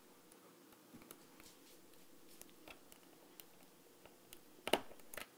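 Faint small plastic clicks and scrapes as a small flathead screwdriver pries at the back of a Chevrolet Aveo key fob's circuit module, then two sharp clicks close together near the end as the back cover pops off.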